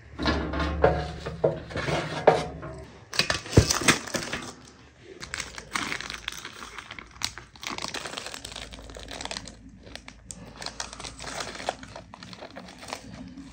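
Metal clanks and clatters of a baking tray being taken from a wood stove's oven and set down, then a long stretch of crinkling and rustling as baking parchment is peeled off a baked honey cake layer.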